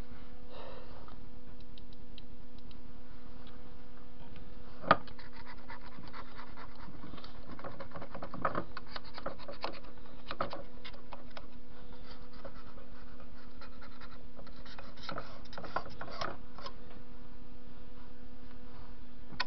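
Old grease and dirt being scraped and rubbed by hand off the cross slide of a TV-16 metal lathe: irregular scratching, with a sharp knock about five seconds in, over a steady low hum.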